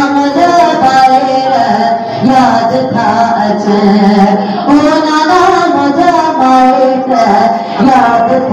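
Background music with a voice singing a melody.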